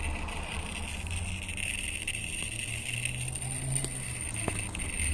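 Mabe microwave oven control board, powered up, giving off a steady high-pitched electronic whine over a low hum. The repairman blames it on a swollen 470 µF, 25 V capacitor at the board's power input, a noise he says is common on Mabe boards.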